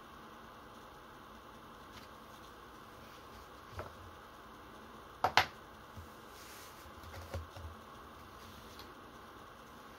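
A few light clicks and knocks from gloved hands handling objects on a desk: a small click, then a sharp double click about five seconds in, the loudest sound, then a few dull low knocks, over a steady faint hiss.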